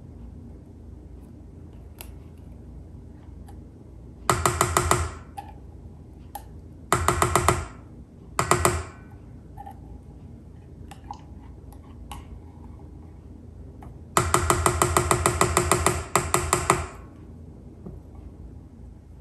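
A spatula scraping the inside of an opened metal can in bursts of rapid, chattering strokes that set the can ringing. There are three short bursts, then a longer one of nearly three seconds near the end.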